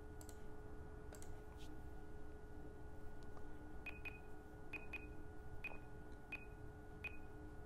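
Sharp switching clicks, each with a brief high ping, about every two-thirds of a second from about four seconds in, as the vector network analyzer runs a two-port automatic calibration through its calibration module. A few faint clicks come in the first two seconds, over a faint steady electronic hum.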